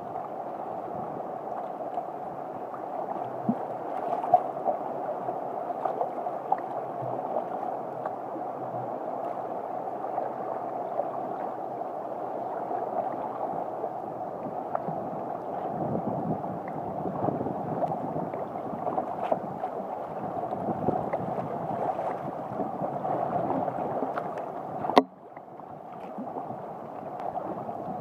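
Water sloshing and splashing against a sea kayak's bow as it is paddled through choppy sea, with small splashes throughout. A single sharp knock about 25 seconds in, after which the water noise is briefly quieter.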